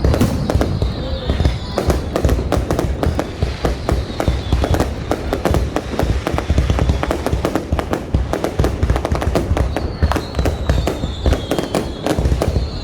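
Fireworks going off in a dense, continuous barrage of rapid bangs and crackles. Faint falling whistles are heard early on and again about ten seconds in.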